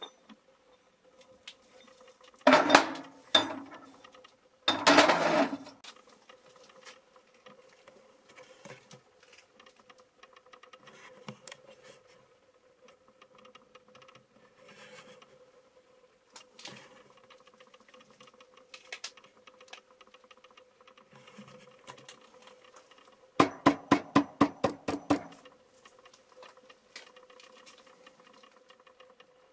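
Two loud bursts of clattering knocks, about three and five seconds in, and a quick run of about ten sharp clicks in two seconds near the end, with faint scattered ticks and a faint steady hum between them.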